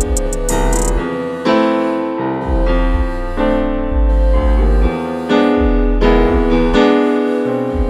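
Background music led by an electric piano, sustained chords over a low bass line that changes about once a second.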